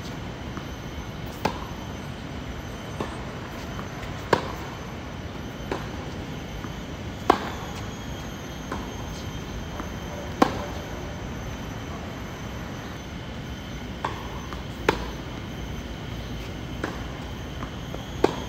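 Tennis rally on a hard court: sharp racket strikes on the ball about every three seconds, with softer ball bounces between them, over a steady background rumble.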